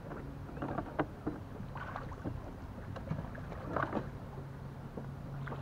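Small knocks and faint water sounds from a kayak as a fish and tackle are handled at the bow, over a steady low hum.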